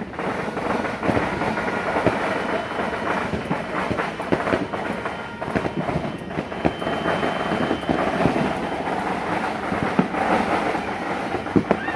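Many fireworks and firecrackers going off at once: a dense, continuous crackling and popping with sharper bangs now and then, and a thin high whistle near the middle.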